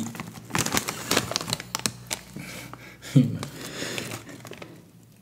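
Metallized plastic Takis chip bag crinkling as it is handled, a dense run of irregular crackling clicks. A short vocal sound about three seconds in is the loudest moment.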